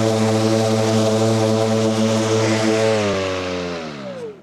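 Milwaukee cordless commercial rotary mower running at full power while cutting long grass at its lowest height setting, a steady electric hum. About three seconds in the blade motor is switched off, and the hum falls in pitch and fades as the blade spins down.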